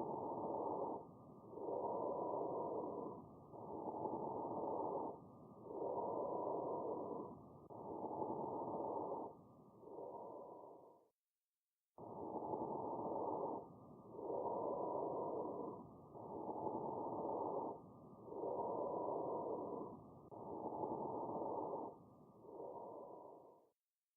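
Recorded bronchovesicular breath sounds from chest auscultation: muffled breathing in even swells, with inspiration and expiration about equally long and only a short pause between them. This is a normal breath sound, softer than bronchial breathing, heard between the shoulder blades and over the middle of the front of the chest. The recording cuts out about halfway through and starts over, giving about six breaths in all.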